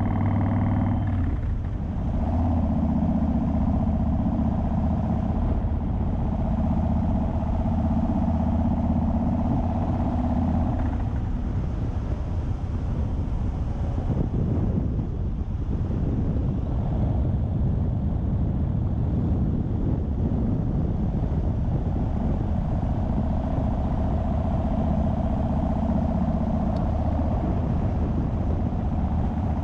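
Yamaha Raider's V-twin engine running steadily at an easy cruising pace, with road and wind noise. The even engine note breaks up into a rougher rumble for a few seconds midway, then settles again.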